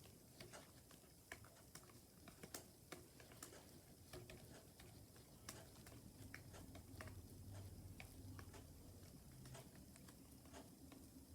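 Faint, irregular key taps of typing on a Logitech Keys-To-Go Bluetooth keyboard.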